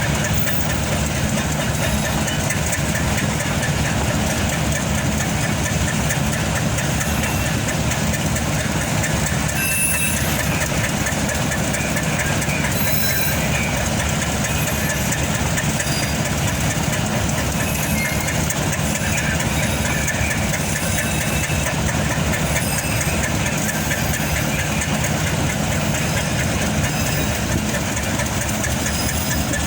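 Train rolling along the rails with a steady rumble of wheels and a low, even engine drone.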